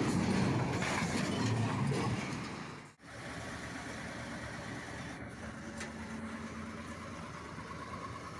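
Heavy vehicle engines running. The sound drops out abruptly about three seconds in and comes back as a quieter, steadier engine sound.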